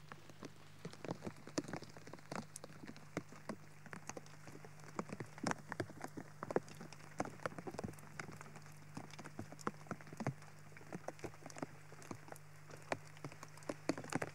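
Wood fire crackling and popping in irregular sharp snaps, several a second.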